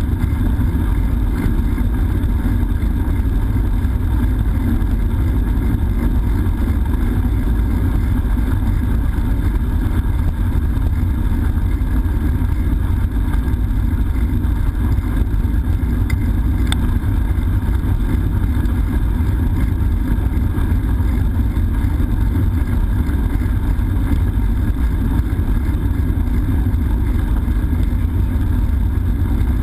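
Wind buffeting a GoPro camera's microphone on a moving bicycle: a steady low rumble with no letup, and one faint click about seventeen seconds in.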